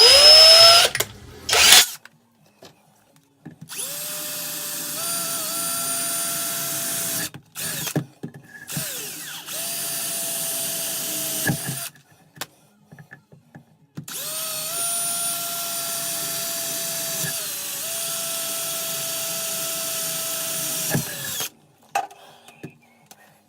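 Power drill running in several long bursts of a few seconds each, its motor tone steady while it bores through a Villaboard-over-foam wall, with short pauses between runs.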